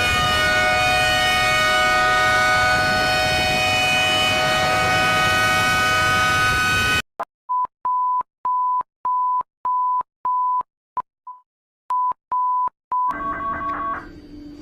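A warning siren holding a steady chord of several tones, which cuts off abruptly about seven seconds in. A series of short electronic alert beeps at one pitch follows, about two a second, and music starts near the end.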